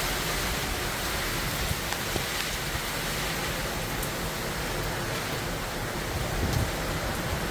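Heavy hurricane rain pouring in a steady hiss, with gusts of wind rumbling on the microphone, the strongest about six and a half seconds in.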